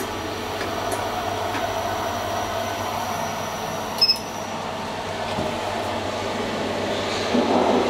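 A car-panel button on an SMW traction elevator is pressed about four seconds in and gives a short, sharp double beep. Under it is a steady machinery and ventilation hum that grows louder near the end.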